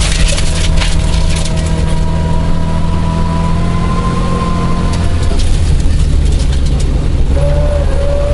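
1977 Isuzu Gemini coupe's 1600cc four-cylinder engine running hard, heard from inside the cabin, its note climbing gently and then falling away about five seconds in. Gravel crackles and rattles under the car, most densely early on.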